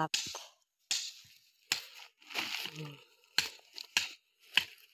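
Crinkling and rustling of plastic mulch film being handled and pressed, in about six short, sharp bursts.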